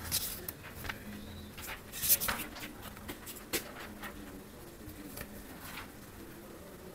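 Paper rustling and crinkling as a page of a hardcover book is turned by hand, loudest about two seconds in, with scattered softer brushes and taps of fingers on the paper.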